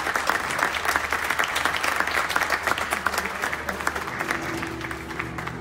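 Audience applauding, dense clapping that thins out near the end as a band's instruments come in with steady held notes.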